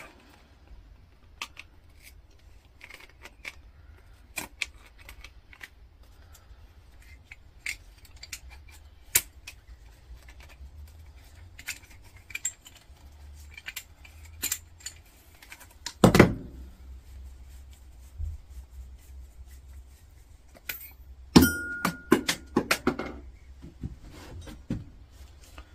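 Pliers clicking and knocking on the brass valve head of a CO2 fire extinguisher as a fitting is worked loose and unscrewed by hand. There are scattered small clicks throughout, a louder knock a little past halfway, and later a brief squeak among a cluster of clicks.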